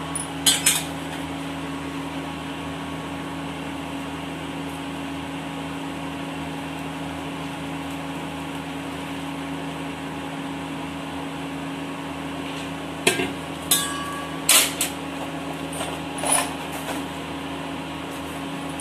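A few sharp clicks and clinks of a ceramic teacup and tea-bag packets being handled on a stone kitchen counter: one just after the start and a cluster of four or five about two-thirds of the way through. Under them runs a steady electrical hum with a few fixed pitches.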